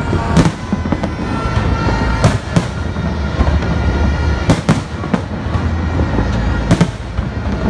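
Aerial firework shells bursting overhead: loud, sharp bangs every second or two, some in quick pairs, over a continuous low rumble.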